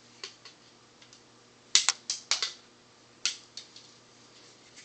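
Flush cutters snipping component leads on the solder side of a circuit board: a series of sharp clicks, loudest in a cluster about two seconds in and once more about a second later.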